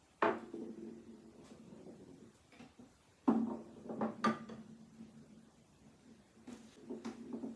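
Hand-turned wooden ball rolling across a wooden desk top. It lands with a sharp knock just after the start and again about three seconds in, and each knock is followed by a low rolling rumble that fades over a second or two. A few lighter clicks come about four seconds in, and another rumble comes near the end.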